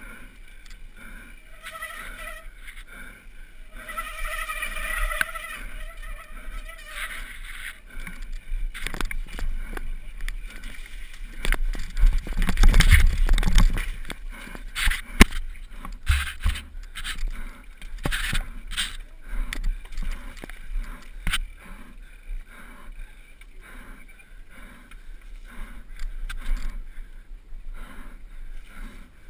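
Downhill mountain bike descending a rough dirt trail at speed: tyres on dirt, the bike clattering over bumps, with steady wind rumble on the microphone. The loudest stretch, a heavy rumble with sharp knocks, comes about twelve seconds in, followed by a run of short knocks.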